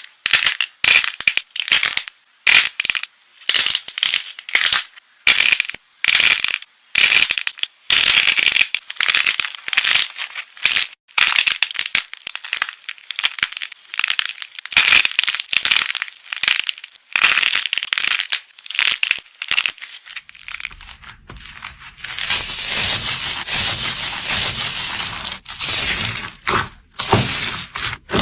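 Slime being squished and pressed, making a run of short crackly squelches, several a second. About twenty seconds in it changes to a denser, steadier crackling.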